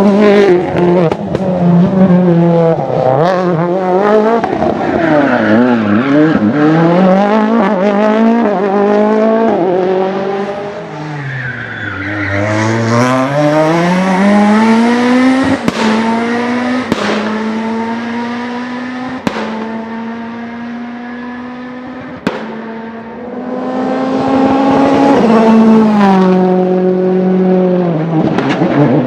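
Rally car engines at full race pace, the note climbing and falling through gear changes with tyre squeal. About twelve seconds in the revs drop low, then climb steadily as the car accelerates away, with several sharp cracks along the way.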